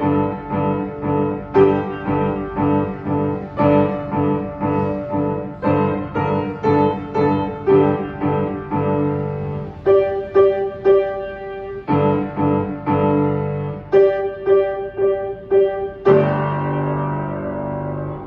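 Upright piano played solo: a run of struck notes and chords, with quick repeated high notes in the second half. It ends on a final chord held for about two seconds, then released.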